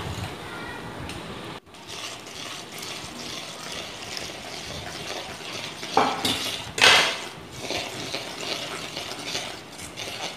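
Metal spoon stirring milk powder and water in a steel vessel, scraping and clinking against its sides, with two louder clanks about six and seven seconds in.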